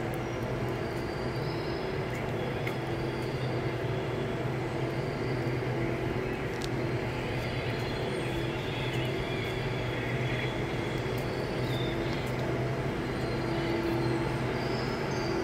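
A steady low mechanical hum under a constant rush of background noise, even throughout.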